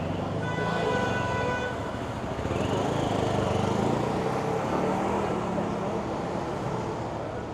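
Busy street traffic noise, with a vehicle horn sounding once for about a second near the start.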